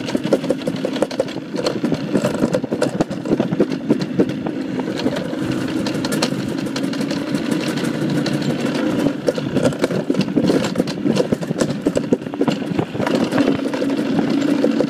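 Dry-toboggan sled running fast down its trough track, a steady rumble with an unbroken stream of knocks and rattles.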